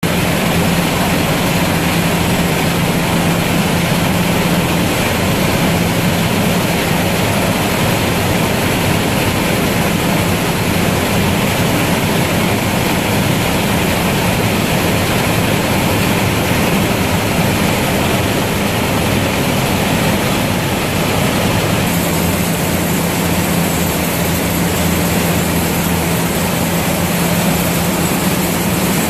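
Hop picking machine (curtain picker) running on its infeed, loud and steady, with a constant low hum and the clatter of its conveyors.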